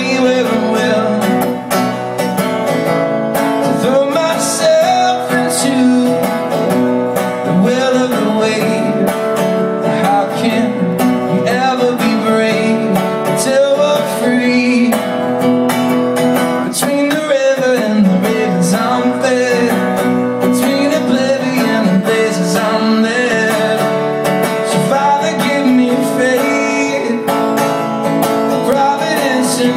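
Acoustic guitar strummed continuously in a live solo performance, with a man singing over it.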